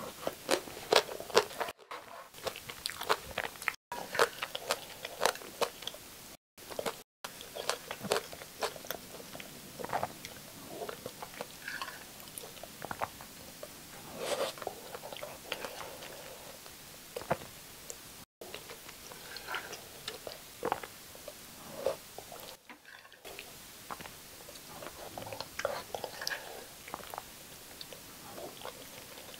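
Close-miked eating of black bean sauce instant noodles: wet chewing and biting with many short, sharp clicks, irregular and without a steady rhythm.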